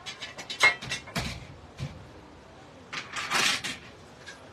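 Black steel slotted-angle shelving unit being handled during assembly: a quick run of sharp metal clicks and knocks, a single knock a moment later, then a longer scraping rattle about three seconds in.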